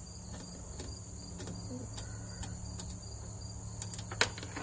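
Steady high trilling of crickets in the background, with faint ticks of hands working at small wiring hardware and one sharp click near the end.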